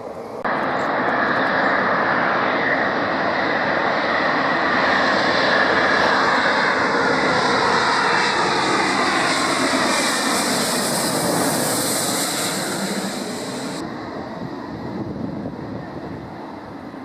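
An airliner's engines passing close by, with a loud, dense rush that comes in abruptly about half a second in. The pitch slides down as the aircraft goes past, and the sound then fades away.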